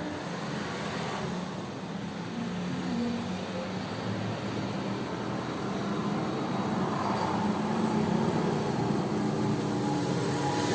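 Steady motor-vehicle engine and traffic noise, growing louder in the second half.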